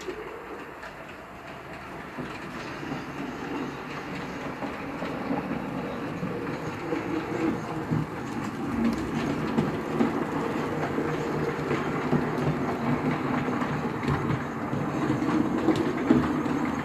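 HO scale model train, an electric locomotive hauling passenger coaches, running on PIKO track. The motor and the wheels on the rails grow steadily louder as it approaches.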